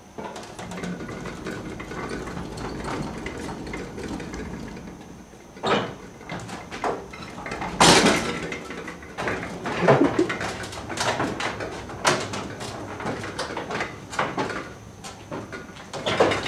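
Hand truck carrying a refrigerator rolling over pavement with a steady low rumble, then a run of clanks and knocks as it is pushed onto and up a metal loading ramp, the loudest bangs about halfway through and again a couple of seconds later.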